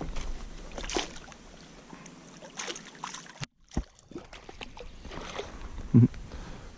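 Water sounds around a kayak: paddle splashes and drips with scattered small knocks, and a low thump on the hull about six seconds in.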